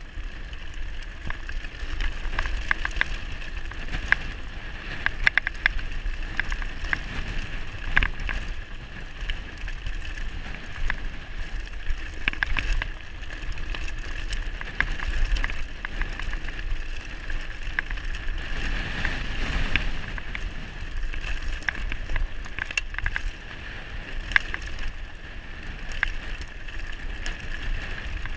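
Mountain bike rolling fast down a loose gravel track: tyres crunching over stones, with many sharp rattles and knocks from the bike as it hits rocks, over a steady high buzz and a low wind rumble on the microphone.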